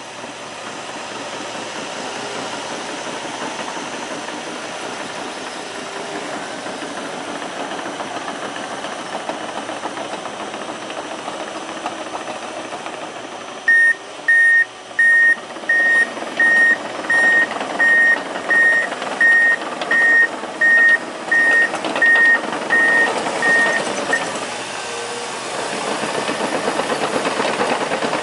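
Crawler bulldozer's diesel engine running, with its reversing alarm beeping about 15 times at a steady pace of roughly one and a half beeps a second from about halfway through. Near the end the beeping stops and the engine gets louder.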